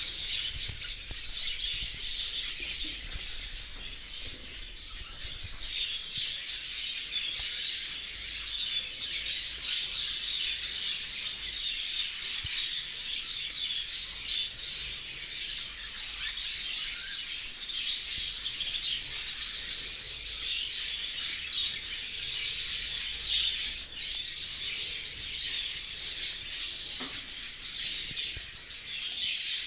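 A flock of budgerigars chattering and chirping continuously, many birds twittering at once.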